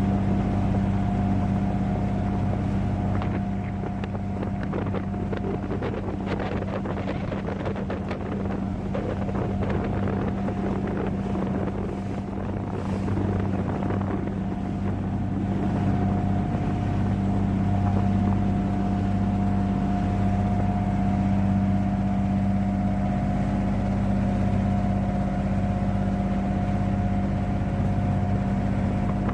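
Tour boat's motor running at a steady pitch, with a rushing noise of wind or water over it for several seconds in the first half.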